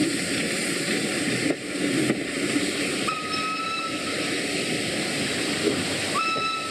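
Steam locomotive whistle sounding twice at one steady pitch: a blast of about a second roughly three seconds in, then a longer one starting near the end. Both sound over a steady hiss.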